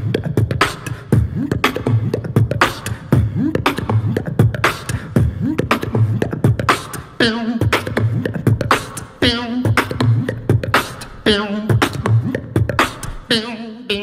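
Human beatboxing into a microphone: a steady, driving beat of deep bass kicks and sharp snare and hi-hat clicks made with the mouth. From about halfway in, a wavering, sung vocal tone comes in over the beat.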